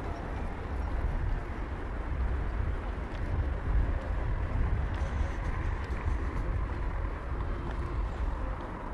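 Outdoor street ambience heard while walking, with a steady low rumble throughout and no clear voices.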